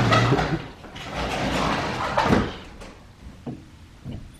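Sliding glass door rolling along its track, one long sweep at the start and a second about a second later, the door opening and then closing.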